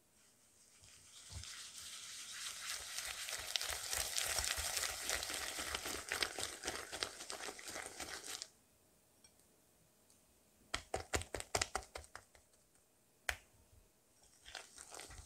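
Silicone whisk beating butter with sugar and salt in a glass bowl, a steady gritty scraping. After a pause comes a quick run of sharp clicks and a single knock against the bowl, and the scraping starts again near the end.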